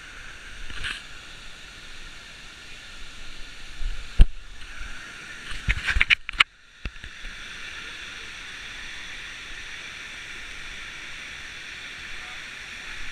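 Steady rush of a shallow stream cascading over rocks below a waterfall, heard as an even hiss through a waterproof camera housing. A sharp knock about four seconds in and a cluster of knocks and scrapes a little later come from the housing being bumped and handled.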